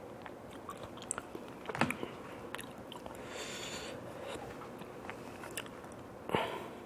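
Close-miked eating and food-handling sounds: scattered small crackles and clicks, with a louder crunch about six seconds in.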